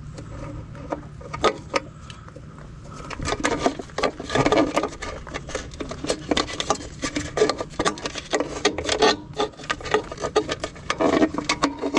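Hands working inside an e-bike frame's battery compartment, tugging at a snap-fit plastic guard plate and its cabling. There are a few scattered clicks at first, then from about three seconds in a dense, irregular run of plastic clicking, rattling and rubbing.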